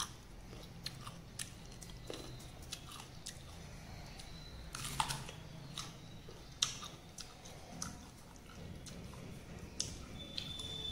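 A person chewing crunchy raw green mango, with irregular wet crunches and clicks; a few louder crunches come around the middle.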